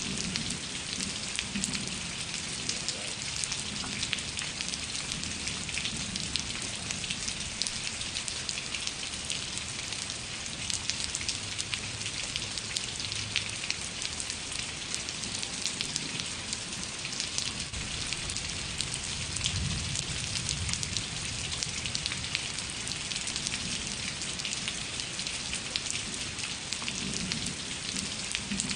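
Steady rain falling, a dense even hiss of countless fine drop patters, with a soft low rumble coming and going underneath.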